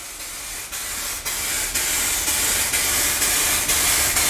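Aerosol spray can of 2K clear coat spraying a continuous hiss as a wet second coat is laid down; the hiss grows louder about a second in.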